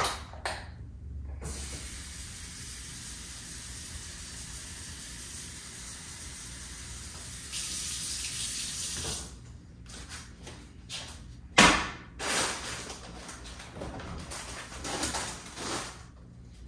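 Kitchen sink faucet running steadily for about eight seconds, briefly louder and brighter just before it shuts off. After that come scattered knocks and clatter, with one sharp, loud knock about halfway through.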